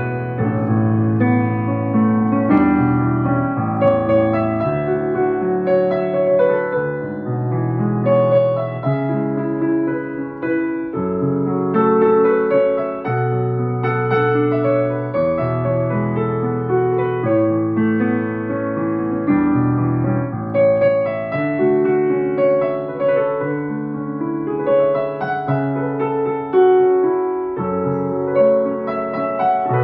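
Yamaha Clavinova CLP-535 digital piano being played: a flowing piece with held bass notes and chords under a melody, without a break.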